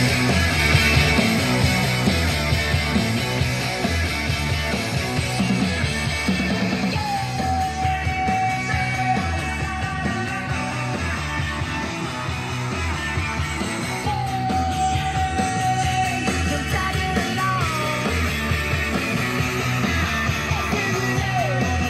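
Rock song with a band and a loud singer, played back through KLH Model 403A indoor/outdoor speakers (4-inch polypropylene mid-woofer with a piezo tweeter). The singer holds a long note twice, about a third and two thirds of the way through, over a steady beat.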